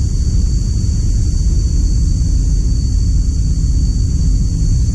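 Pressure washer running, its water spray hissing against the fins of an air conditioner's indoor evaporator coil, over a steady loud rumble.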